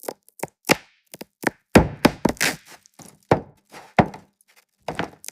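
A rapid, uneven series of knocks and thuds, about three or four a second, with a short pause near the end.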